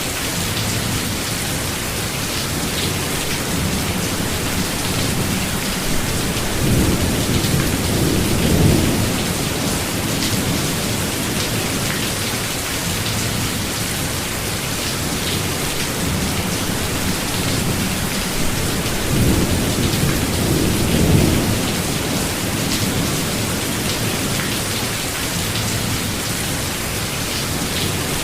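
Steady rain falling in a forest, with two low rolls of thunder swelling and fading, about a quarter of the way in and again about two-thirds in.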